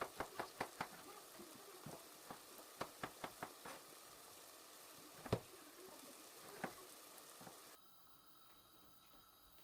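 Quick, light clicks and knocks of kitchen utensils, several a second at first and then in short clusters, with one louder knock a little past halfway, over a faint steady hiss that cuts off near the end.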